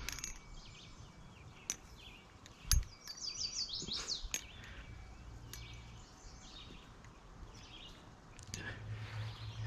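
A few scattered sharp clicks of a titanium-handled balisong being handled and flipped, the loudest a little under three seconds in, with birds chirping in the background through the middle.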